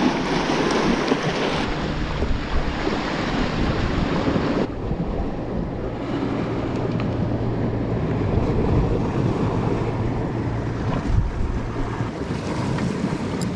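Sea waves washing and breaking against rocks, with wind buffeting the microphone. A faint, steady low hum runs under it through the middle of the stretch.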